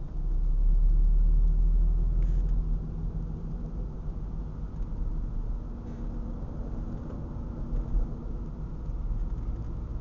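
Car driving along a winding road, heard from inside the cabin: a steady low rumble of engine and tyres, louder for the first couple of seconds.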